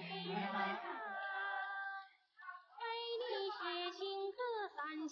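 A high voice singing held, wavering notes, with a brief break about two seconds in.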